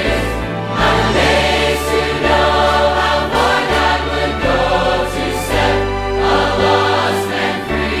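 Gospel song: voices singing with instrumental backing and a bass line that changes note every second or so.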